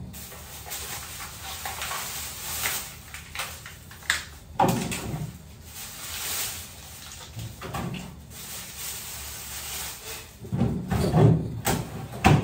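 Frozen food being put away in a fridge-freezer's freezer compartment: handling noises and a series of knocks as packs go in and the freezer drawers are moved, with the loudest knocks near the end.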